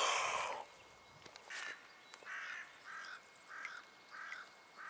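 A crow cawing about six times in an even series, each caw short and harsh. A brief loud rush of noise is heard in the first half-second.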